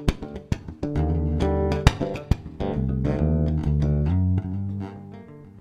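Unaccompanied electric bass guitar: held low notes and chords broken by sharp percussive hits, getting quieter near the end.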